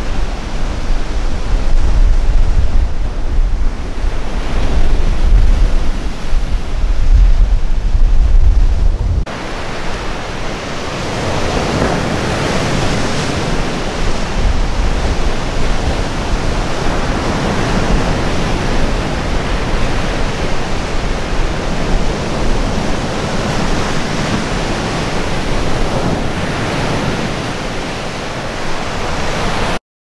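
Wind buffeting the microphone with a heavy low rumble over large lake waves breaking on the shore. About nine seconds in the wind rumble drops away, leaving the steady rush of breaking surf swelling and easing with each wave, until the sound cuts off just before the end.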